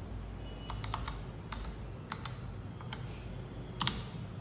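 Logitech POP Keys wireless mechanical keyboard with round typewriter-style keycaps, keys pressed one at a time in an unhurried sequence: about eight separate clacks at uneven spacing, the loudest a quick double near the end. A steady low hum runs underneath.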